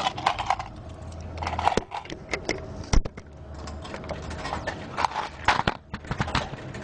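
Slot machine in an arcade, with irregular clicks and knocks and brief pitched tones as the game awards ten free games.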